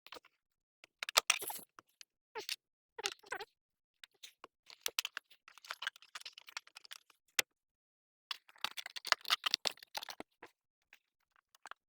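Handling noises: irregular clicks, light knocks and short bursts of scraping and rustling, like small plastic parts and cable being handled and fitted.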